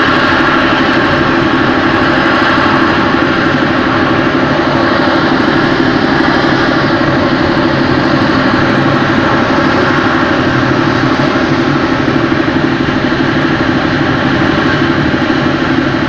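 Solid-fuel rocket motor of an S-300 surface-to-air missile burning at the launcher after a failed launch: a loud, steady rushing noise that holds unchanged throughout.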